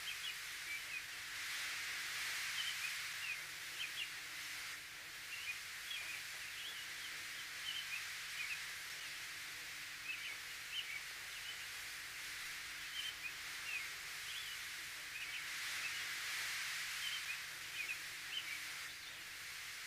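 Countryside ambience: small birds chirping repeatedly over a steady soft hiss.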